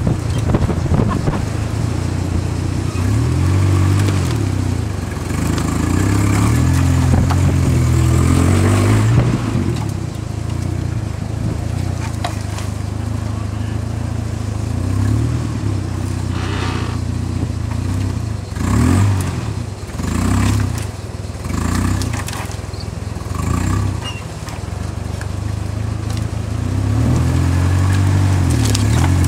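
Vehicle engine running, its pitch rising and falling again and again as it revs up and eases off, with occasional knocks and rattles.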